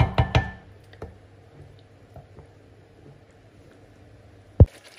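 A wooden spoon knocks a few times in quick succession against a nonstick pan of thick butter chicken gravy as it is stirred. A faint steady hum with occasional soft ticks follows, and one dull thump comes near the end.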